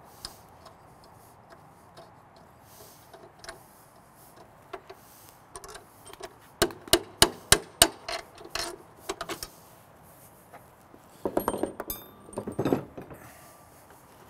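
Hammer driving a stuck bolt out of a steel door block, with another bolt held against it as a punch: scattered light metal taps, then a quick run of about five sharp metal strikes, then lighter taps. Near the end there is a burst of metallic rattling and scraping.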